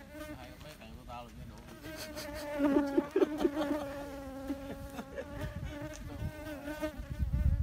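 A flying insect buzzing, a steady drone that wavers slightly in pitch and is loudest about three seconds in.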